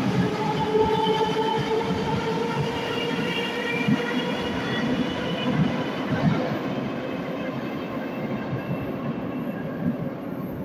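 A metro train pulls out of the station into the tunnel. Its motors whine in several tones over the rumble of wheels on rail. The whine fades out about halfway through and the rumble slowly dies away.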